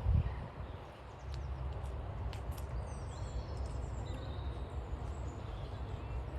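Outdoor ambience: a steady low wind rumble on the microphone, with small birds chirping now and then.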